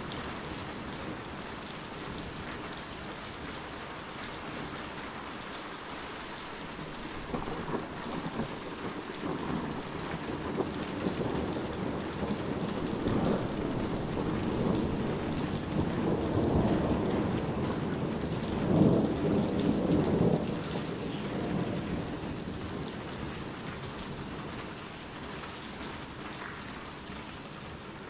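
Heavy rain falling steadily, with a long rolling rumble of thunder that builds up, is loudest about two-thirds of the way in, and then slowly dies away.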